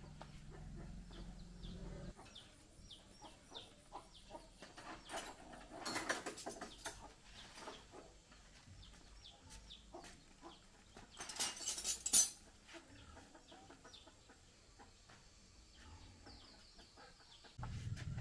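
Birds calling in short, high, falling chirps, repeated many times. About eleven seconds in comes a brief rustling clatter, the loudest sound, and a low hum starts suddenly near the end.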